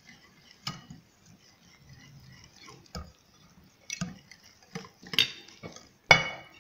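Hand wire whisk stirring flour and cocoa into cake batter in a bowl: soft stirring with irregular clicks and knocks of the whisk against the bowl, the loudest near the end.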